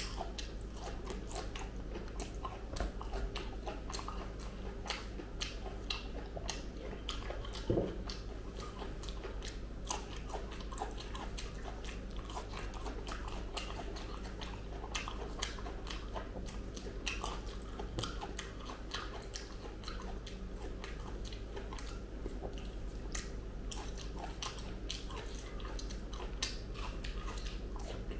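Close-miked eating of ripe jackfruit pods: biting and chewing the soft flesh, with many small clicks throughout and one louder bite about eight seconds in, over a steady low hum.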